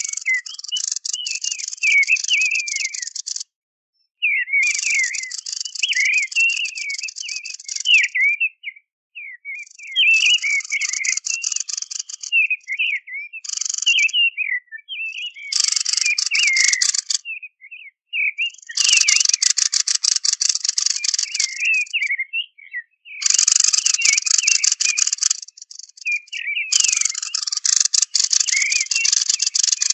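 Lure recording of kikhen birds: warbling song phrases mixed with repeated bouts, a few seconds each, of dry, fast rattling chatter.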